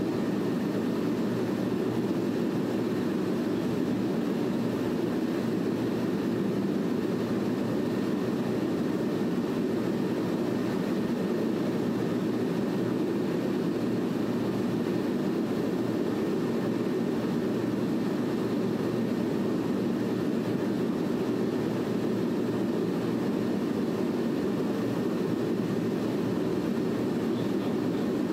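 A steady low rushing drone that holds the same level throughout, with no separate events.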